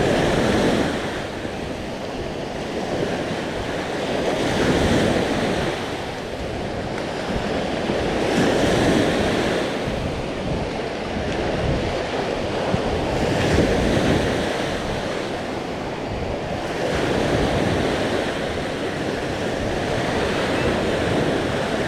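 Sea waves breaking on the shore, the surf swelling and falling back about every four seconds, with wind buffeting the microphone.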